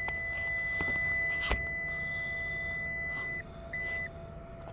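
Digital multimeter continuity beeper sounding a steady high beep while the probes are held on a furnace limit switch, a sign that the switch is closed. The beep cuts off about three and a half seconds in, then sounds again briefly, with a few light clicks from the probes.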